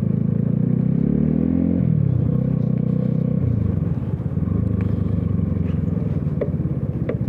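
A vehicle engine running, its pitch climbing for the first two seconds, then dropping in two steps, about two and about three and a half seconds in, before running steady.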